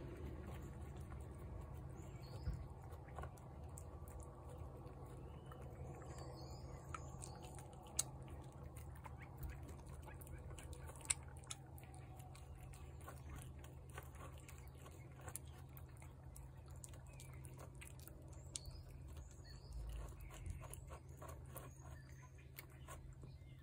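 A cat eating shredded wet cat food from a plate: faint wet chewing and mouth clicks throughout, with a few sharper clicks.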